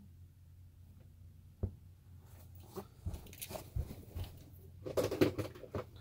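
A faint steady low hum, a single thump about a second and a half in, then a run of small knocks, clicks and rustles that get louder toward the end: a person moving about inside a travel trailer.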